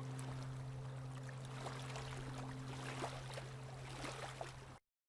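Sea water lapping with small scattered splashes over a low steady hum. Higher held tones drop out partway through, and everything cuts off to silence just before the end.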